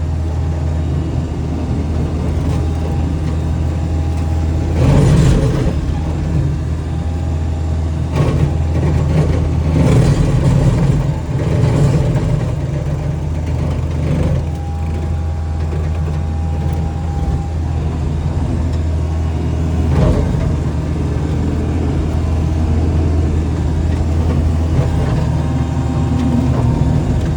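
Skid steer engine running steadily under load while its brush cutter attachment works, with loud bursts of noise as the cutter bites into wood: once about five seconds in, several times between eight and twelve seconds, and again near fourteen and twenty seconds.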